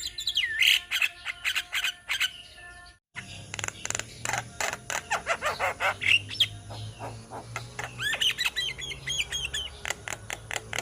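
A group of Javan mynas (jalak kebo) chattering together: rapid clicks, harsh squawks and whistled, gliding notes. The sound cuts out completely for a moment about three seconds in, then resumes.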